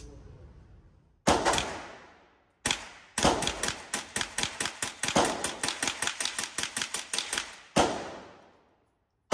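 AR-15 rifle converted to .22 calibre firing: two single shots, then a rapid string of about five to six shots a second for around four seconds, then two more single shots. Each sharp crack echoes off the walls of an indoor range.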